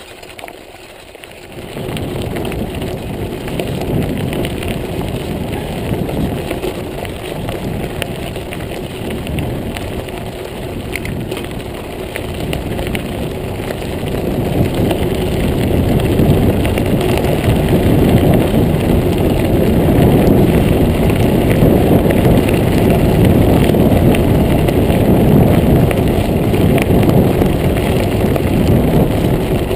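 Wind rumbling on the microphone and tyres rolling over gravel as a mountain bike is ridden along. The noise comes up suddenly about two seconds in and grows louder past the halfway point.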